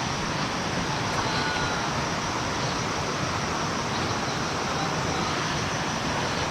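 Mountain stream water rushing steadily, an even hiss of flowing water.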